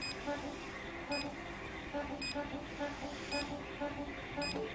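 JR DMSS radio transmitter giving short, high electronic beeps about once a second while receiving altitude telemetry.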